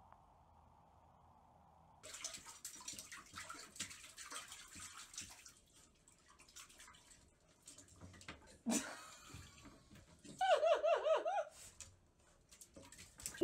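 Water sloshing and splashing in a toilet bowl as a small pet climbs down into it. Near the end a person's high, wavering laugh.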